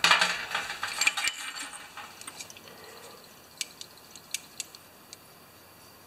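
Small Honda carburetor body set down on a steel drain pan, clattering and scraping on the metal for about a second and a half, then a few light clicks as small parts are handled.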